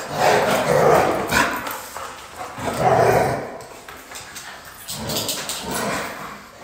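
Small dogs barking in play, in three bouts about two seconds apart.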